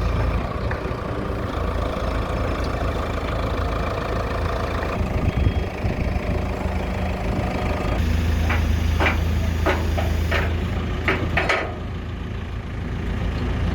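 Truck engine idling steadily while a car is unloaded, with a few short clanks partway through.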